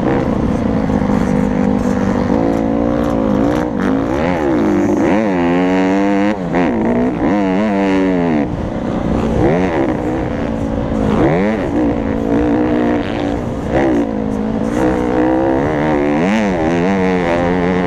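Honda CRF150R's four-stroke single-cylinder engine revving hard under race throttle, its pitch climbing and dropping again and again as the rider accelerates, shifts and rolls off for corners.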